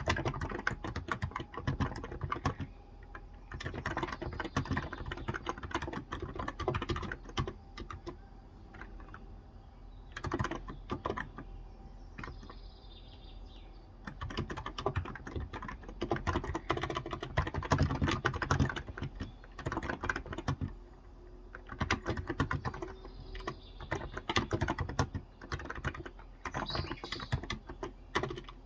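Typing on a Cox Endeavour tenkeyless keyboard with electrostatic capacitive (non-contact) 35 g switches: rapid keystrokes in bursts, broken by short pauses.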